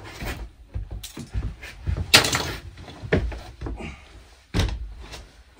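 Thumps, knocks and scuffing as a tri-fold foam mattress is handled and folded up. The loudest knock comes about two seconds in, with another sharp one about four and a half seconds in.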